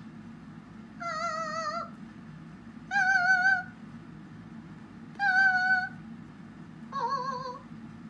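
Cockatiel calling in four long, wavering notes, each just under a second and about two seconds apart, the pitch shifting a little from note to note.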